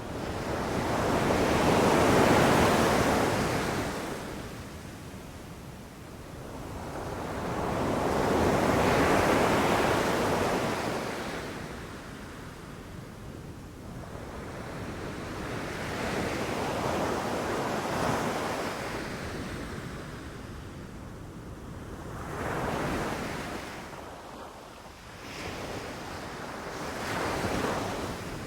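Ocean waves breaking and washing up the shore in slow surges, about five in a row, each building and fading over a few seconds; the first two are the loudest and the later ones come shorter.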